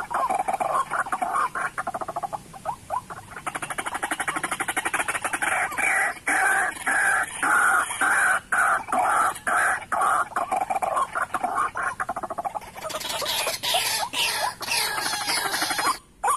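White-breasted waterhens calling: a continuous run of fast, repeated harsh notes.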